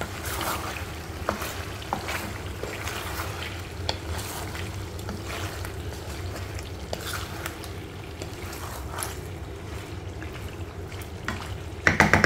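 Chicken and tomato pieces simmering and sizzling gently in a karahi while a wooden spatula stirs and scrapes through them, with a few light knocks against the pan and a steady low hum underneath. A cluster of louder scrapes and knocks comes near the end.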